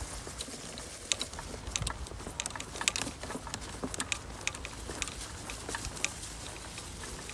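Light rain patter: irregular small ticks of drops, several a second, over a low rumble of wind on the microphone.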